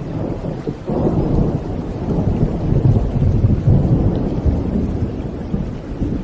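Rolling thunder over steady rain. A deep rumble builds suddenly about a second in, swells through the middle and eases off near the end.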